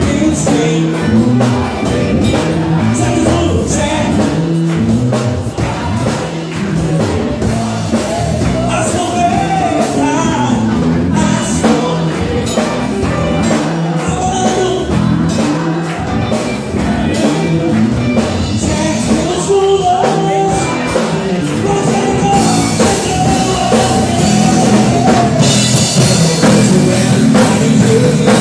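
A trio of electric guitar, bass guitar and drum kit playing a song, with the guitar carrying the melody over the bass line. The cymbals grow brighter and denser in the last few seconds.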